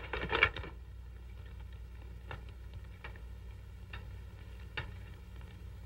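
Steady low hum of an old film soundtrack, with a few faint soft taps and rustles about a second apart.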